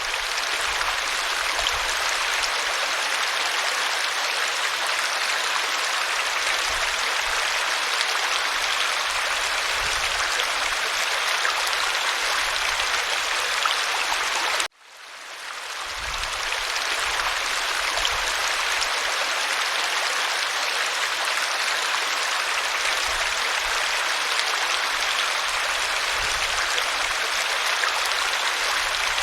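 Waterfall: a steady rush of falling water, an even hiss. About halfway through it cuts out abruptly and fades back in over a second or two, where the looped recording restarts.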